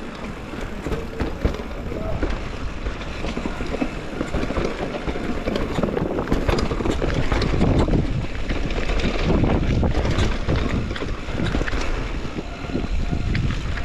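Mountain bike riding fast down a rough downhill trail: wind buffeting the microphone over a steady rumble of tyres on dirt and rock, with frequent rattles and clicks from the bike.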